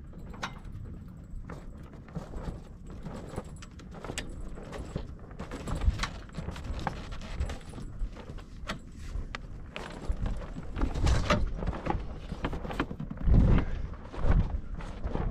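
Hand-cranked boom roller-reefing gear being wound to unroll a reefed mainsail from the boom: irregular metallic clicks and knocks, with a few heavier thumps in the last few seconds.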